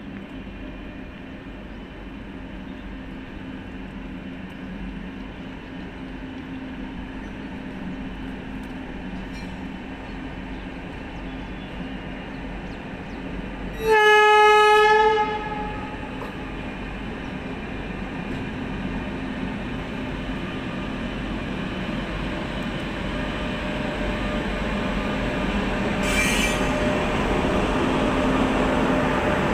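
Indian Railways electric locomotive and its passenger coaches running out of the station, getting steadily louder as they come up and pass. About halfway through the locomotive sounds its horn once, a single steady blast of about a second and a half, and near the end there is a short screech from the wheels.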